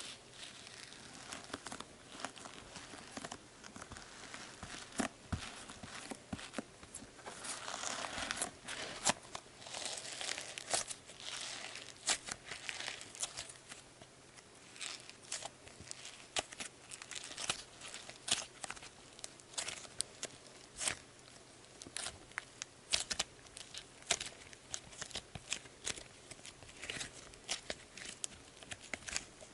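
Soft Sbabam Melmito slime studded with small foam beads being squeezed and kneaded by hand: a continuous run of faint, irregular little crackles and clicks.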